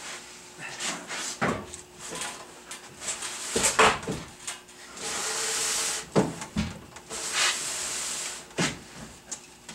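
A sheet-metal furnace cabinet being tipped over and laid down on a wooden ramp: a string of knocks and thumps, the loudest about four seconds in, with stretches of scraping as the cardboard-padded cabinet slides against the boards.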